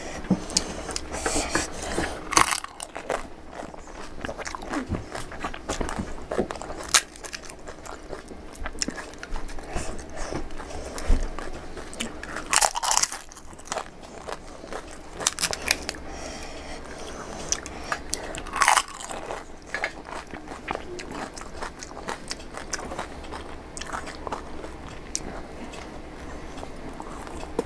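Close-miked eating: crisp pani puri shells cracking and crunching between the teeth, with chewing between bites and a few louder crunches. Near the end comes a bite into a fried bread pakora.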